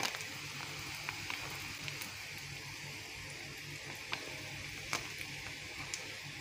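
Diced potatoes and onions frying gently in oil in a pan turned down to low heat: a steady soft sizzle with a few faint ticks scattered through it.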